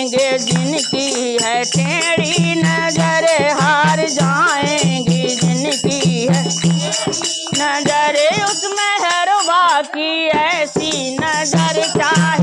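Women singing a Hindi devotional bhajan together, accompanied by steady dholak strokes, small hand cymbals (manjira) and a shaken plastic rattle.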